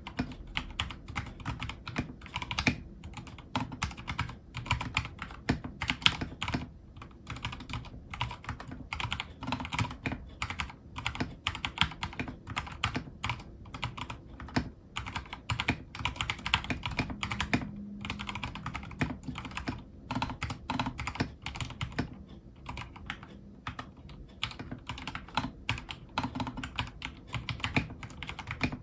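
Continuous typing on a stock, unmodified Vortexgear Cypher 65 mechanical keyboard with Cherry MX Silver linear switches and PBT OEM-profile keycaps: a fast, uneven run of key presses and keycap clacks.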